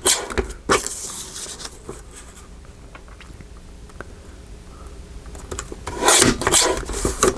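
Paper rustling and sliding against a tabletop as craft papers and ephemera are handled: a short rustle just after the start, a quieter spell, then a busy run of rustling from about six seconds in.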